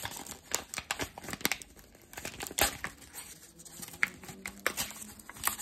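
Mail packaging being torn open and crinkled by hand: a run of irregular crackles and short rips.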